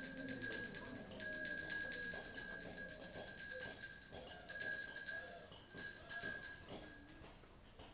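Altar bells, a hand-held set of small bells, shaken in several rapid jingling bursts with short breaks and stopping near the end. This is the bell ringing that marks the elevation of the consecrated host at Mass.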